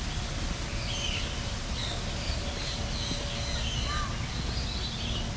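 Several birds chirping and calling, with short high calls scattered throughout, over a steady low background hum.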